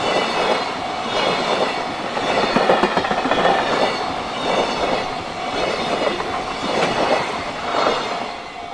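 Freight train wagons rolling past a level crossing, wheels clattering over the rail joints in a repeating clickety-clack, with a level-crossing warning bell ringing steadily. The wagon noise falls away near the end as the last cars pass.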